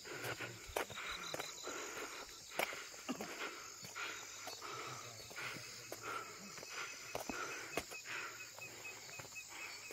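Insects chirping steadily, with an even run of quick high chirps through the second half and scattered sharp clicks and knocks.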